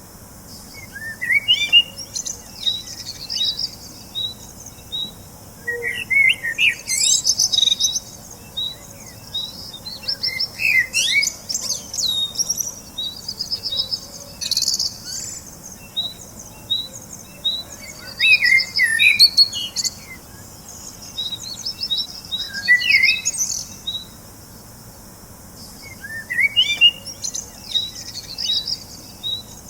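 Several birds chirping and twittering. One repeats a short high note at a steady pace, while others break in every few seconds with bursts of quick rising chirps.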